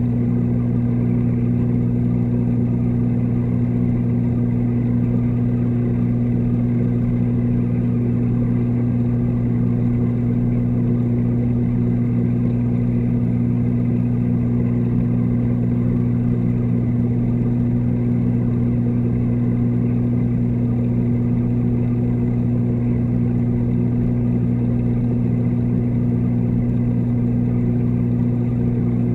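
Steady low electrical hum of reef-aquarium pumps, heard through the water by a camera submerged in the tank.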